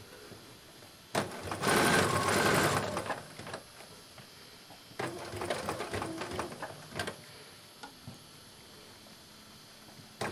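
Domestic sewing machine stitching in two runs: a loud run of about two seconds starting a second in, then a softer run from about five to seven seconds in, with quiet pauses between as a pocket is topstitched onto the apron fabric.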